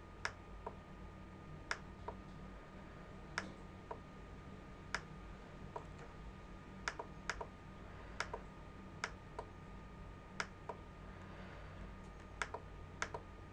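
Computer mouse button clicks: about twenty short, sharp clicks at irregular spacing, some in quick pairs, over a faint steady hum.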